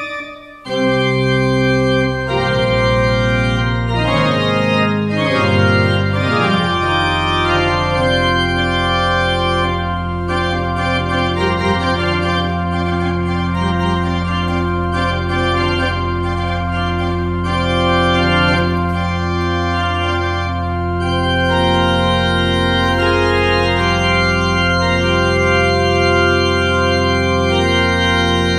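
Pipe organ playing loud, full sustained chords. After a brief break in the sound, the chords re-enter about a second in, and a long low pedal note is held beneath them from about six seconds in.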